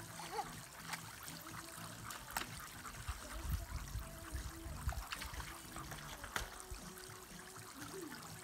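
Water trickling and spattering on an inflatable garden water slide, with scattered sharp splashes as a child and a German Shepherd step about in the wet slide.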